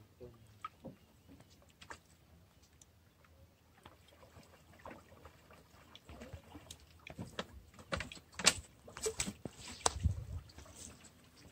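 A wooden boat being poled through shallow water: faint water sloshing at first, then, past the middle, a run of sharp knocks and clatters as the pole and gear strike the hull, with a low thump near the end.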